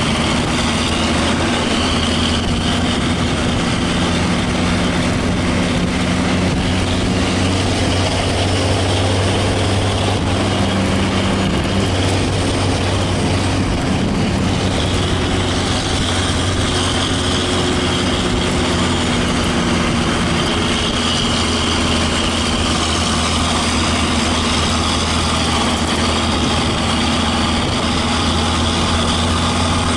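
Intercity bus's diesel engine running steadily under load on an uphill climb, heard from close behind: a low, even drone with a faint higher whine, its pitch shifting slightly about halfway through.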